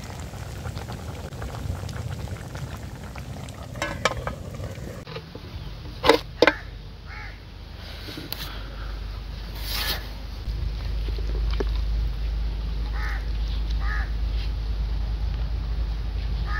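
Outdoor ambience: a steady low rumble with a few short bird calls, two loud ones about six seconds in.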